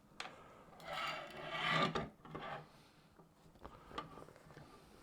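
Teleprompter parts being fitted together by hand. A sharp click at the start is followed by about a second of scraping and rubbing, then a shorter scrape and another light click near the end.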